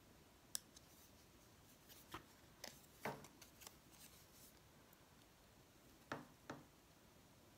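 Scissors snipping through cardstock: a few faint, short snips spread out, several close together in the middle and two more near the end.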